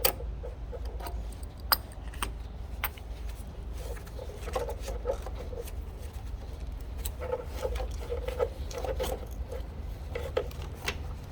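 Small metallic clicks and clinks of a wrench loosening the nut on a car battery's negative terminal clamp, with the terminal being worked off the post; the sounds come in scattered taps and short clusters.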